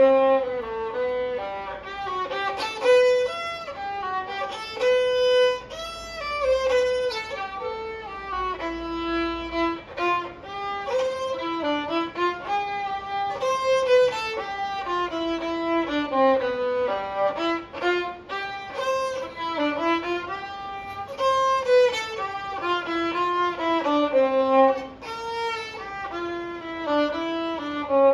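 Solo viola played with the bow: a continuous melody of connected notes stepping up and down, unaccompanied.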